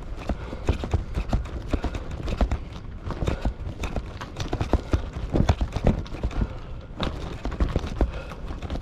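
A bicycle being ridden: rapid, irregular clicking and knocking over a steady low rumble.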